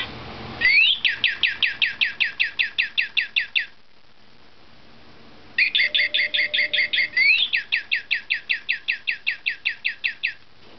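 Voice-activated toy bird playing electronic birdsong: two bursts of fast trilled chirps, each a quick sweeping note repeated about six times a second, the first about three seconds long and the second, starting near the middle, about five seconds long.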